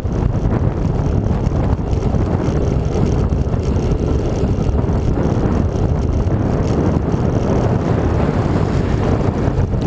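Steady wind buffeting the microphone of a camera riding on a moving bicycle, a constant low rumble with no distinct events.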